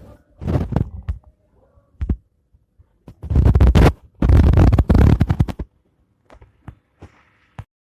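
Loud scraping and rubbing handling noise in irregular bursts, the longest two from about three to five and a half seconds in, followed by a few faint clicks.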